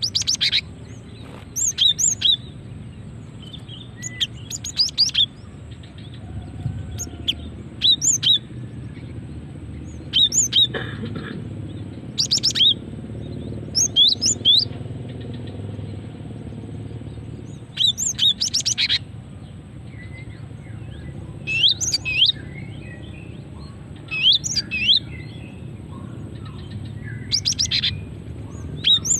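Female cinereous tit (gelatik batu) calling: short clusters of rapid, high chirping notes, repeated about every two to three seconds. A steady low rumble of background noise runs underneath.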